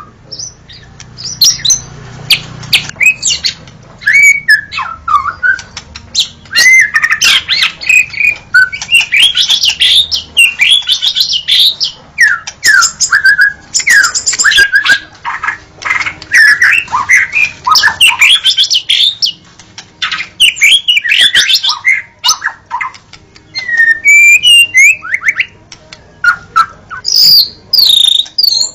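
White-rumped shama (murai batu) singing: a fast, varied stream of whistled slurs and sharp chirping notes, in loud phrases separated by brief pauses.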